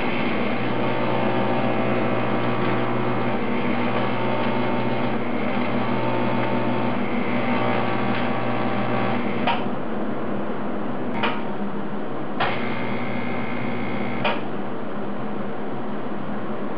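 TIG welding arc buzzing steadily on an aluminium bracket. It stops with a click about nine and a half seconds in, then a second, shorter weld runs from about twelve to fourteen seconds, with sharp clicks as the arc starts and stops.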